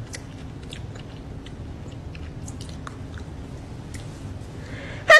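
Faint, irregular small clicks and ticks, about fifteen scattered through a few seconds, over a steady low hum; a voice breaks in right at the end.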